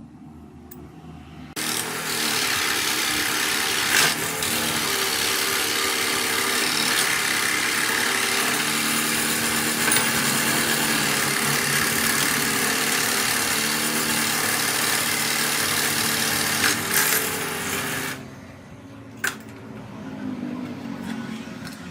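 A power tool running steadily for about sixteen seconds, starting suddenly a second and a half in and stopping near the end.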